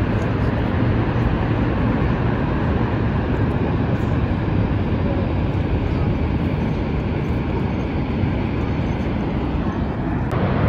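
Steady roar of Niagara Falls: water pouring over the falls and churning in the gorge below, an even, deep rushing noise with no breaks.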